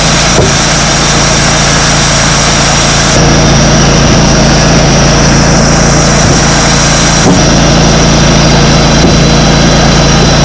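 Wood-Mizer LT35 hydraulic portable band sawmill running steadily and loudly, its engine and band blade going, with a change in the high hiss about three seconds in.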